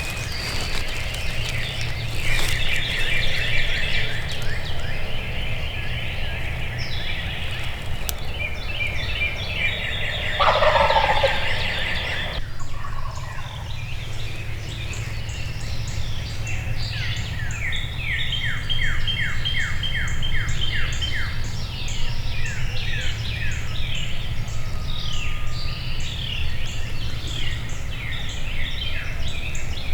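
Dawn chorus of songbirds with repeated trilled phrases, and a wild turkey gobbling from the roost about ten seconds in.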